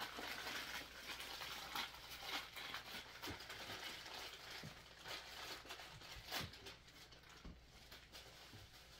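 Faint handling noise: soft rustling of small plastic packaging, with a few scattered clicks and taps, the clearest about six and a half seconds in.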